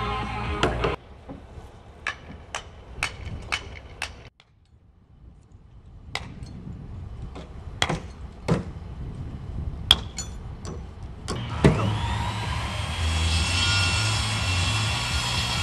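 Music cuts off about a second in. Then come sharp knocks of framing nails being driven into wood, a quick run of about six, a pause, then more spaced-out strikes. Near the end a handheld circular saw spins up and runs steadily through a board.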